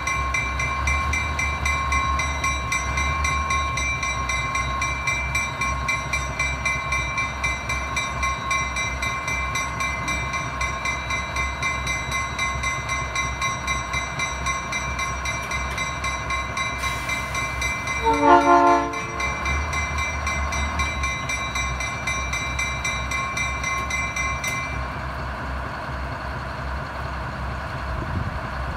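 Small diesel switcher locomotive's engine running with a steady low rumble and a high steady whine that stops near the end. About two-thirds of the way in, a short horn blast of about a second sounds as the locomotive moves off slowly.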